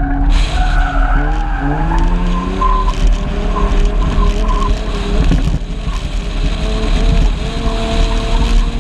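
A car's engine is revved hard as it slides around a dirt track, heard from a camera mounted on the car, with a heavy low rumble underneath. The engine's pitch climbs and drops several times, with a brief dip about five and a half seconds in.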